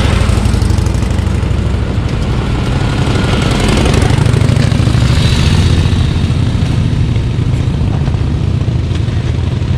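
Motorcycle engines running as antique motorcycles ride through an intersection and pass close by, loudest about four to six seconds in.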